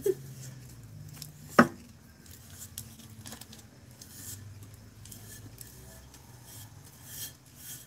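Gloved hands handling a painted water-bottle tumbler while spreading epoxy: faint rubbing and rustling, with a sharp click right at the start and a louder knock about a second and a half in, over a low steady hum.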